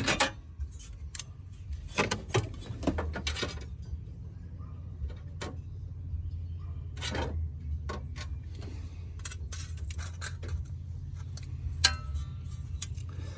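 Irregular metallic clinks and clatter of sheet metal and hand tools being handled, over a steady low hum.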